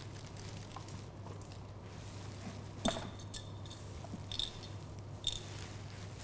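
Three short clinks of a small cat-toy bell as kittens bat their toys, about three, four and a half and five seconds in, over a steady low hum.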